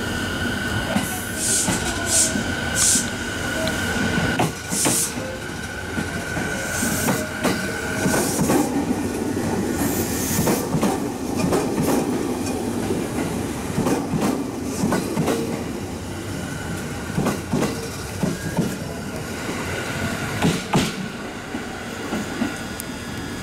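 JR East E217-series electric train pulling slowly into the platform, its wheels clacking over rail joints. A steady high whine sounds for about the first third, drops away, and comes back later.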